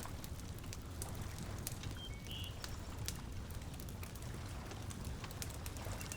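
Wood fire crackling in a fireplace, with scattered sharp pops over a low steady rumble. A few brief bird chirps about two seconds in.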